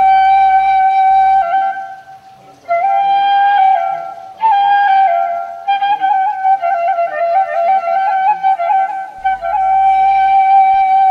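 Solo flute playing a slow, ornamented melody, long held notes alternating with quick turns and trills, with a brief pause about two seconds in.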